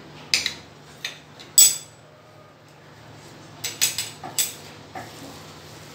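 Steel spoon clinking and scraping against a stainless steel plate while mashed potato is mixed. A few sharp clinks, the loudest about one and a half seconds in, and a quick cluster of them around four seconds in.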